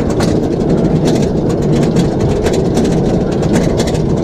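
Roller coaster chain lift hauling the train up the lift hill: a steady mechanical rumble with a fast, even clacking of the anti-rollback, several clicks a second.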